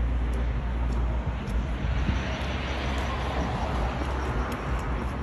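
Street traffic noise with a steady low rumble; a vehicle passing swells the noise in the middle.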